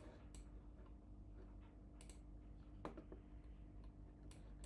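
A few faint, separate computer mouse clicks over near silence with a low steady hum.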